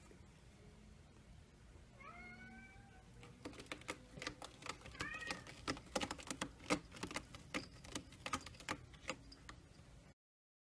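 A domestic cat meows twice, once at about two seconds and again briefly at about five seconds, each call rising at the start. From about three and a half seconds there is a rapid run of sharp clicks and clatters: the window blinds' slats and bead cord being knocked as a cat bats at the cord. Everything stops abruptly near the end.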